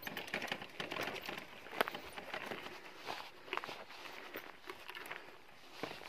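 Footsteps crunching on a stony dirt path: irregular crunches and clicks of loose stones and grit underfoot.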